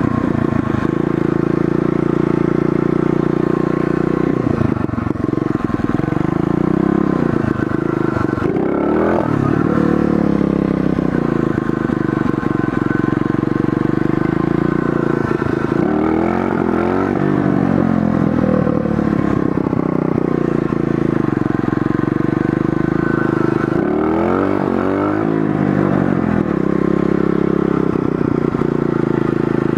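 Pit bike's small engine running under the rider, rising and falling in pitch three times as the throttle is opened and eased off.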